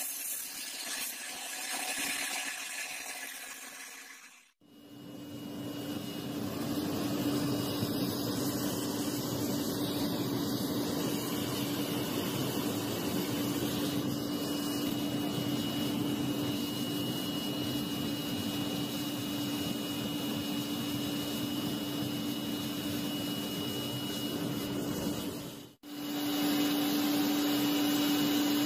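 Belt sander grinding a steel knife blade, cut off suddenly about four and a half seconds in. Then a homemade gas-cylinder forge running: a steady rushing noise with a constant low hum, which carries on after a brief break near the end.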